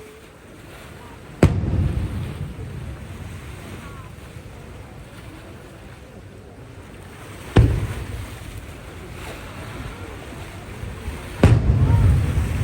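Aerial firework shells bursting: three loud booms, about a second and a half in, seven and a half seconds in and near the end, each followed by a low rolling rumble that fades over a few seconds.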